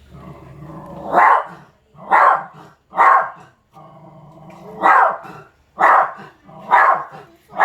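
Dog barking repeatedly at a wild macaque, seven sharp barks about a second apart in two runs, with a low growl in between.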